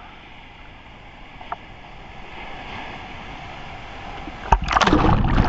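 Low lapping water and faint wind at a camera sitting in the sea. Near the end a breaking wave's whitewater suddenly hits the camera with a loud rush of churning water.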